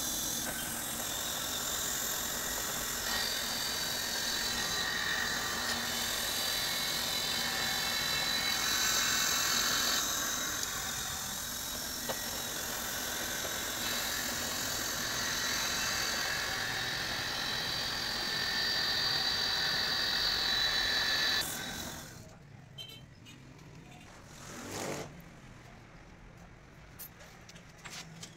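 A machine or engine running steadily, with a high steady whine over it. It stops about three-quarters of the way through, leaving a much quieter background with one brief swell of sound.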